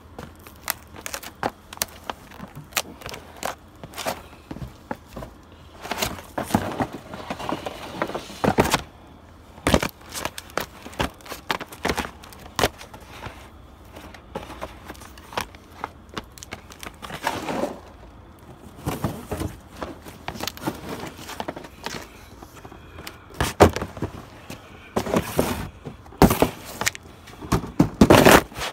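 Cardboard shoe boxes being stomped flat under boat shoes: irregular thuds and crunches of folding cardboard, coming thicker and louder near the end.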